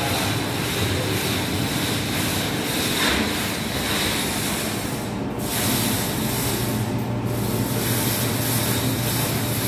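Semi-automatic paper cutting machine's electric motor running: a steady motor hum under an even hiss, with the hiss dipping briefly twice, around five and seven seconds in.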